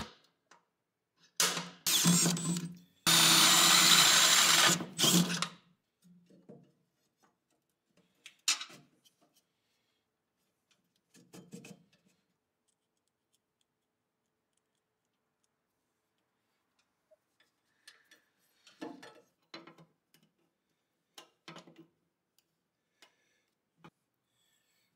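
Power drill running in two short bursts, the second about two and a half seconds long, followed by a few faint clicks and taps of parts being handled.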